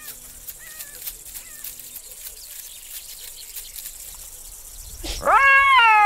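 Black-backed jackal howling. A few faint, wavering calls come in the first couple of seconds, then about five seconds in a loud long wail that rises briefly and then slides down in pitch.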